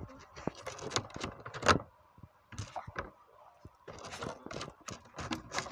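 Irregular close clicks and rustles as a hand and a small dog's head move right up against the phone. One sharper click comes a little under two seconds in, followed by a quieter lull in the middle.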